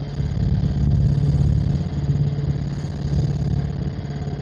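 Helicopter in flight: a steady drone of engine and rotor with a fast, even pulsing beat from the rotor blades.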